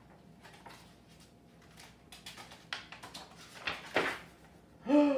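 Handling noise: a string of soft clicks and rustles, with two louder knocks about three and a half and four seconds in. Near the end comes a short voice sound that falls in pitch.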